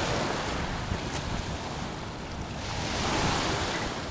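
Small waves washing in shallow surf, with wind buffeting the microphone; the wash swells a little about three seconds in.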